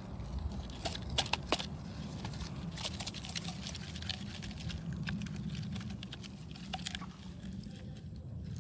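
Scattered light clicks and knocks of plastic toy trucks being handled and pushed through sand, irregular and a few each second, over a steady low rumble.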